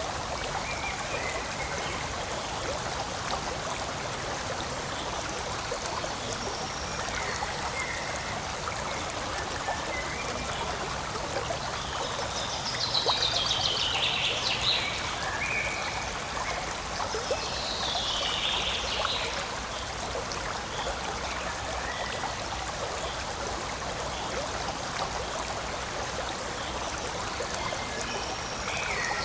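Forest stream running and trickling in a steady rush. High-pitched falling calls sound twice around the middle and again near the end, the loudest moments.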